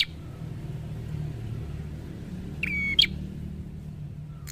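A caged tailorbird gives one short, sharp call about two and a half seconds in: a held note that ends in a higher chip. A steady low rumble runs underneath.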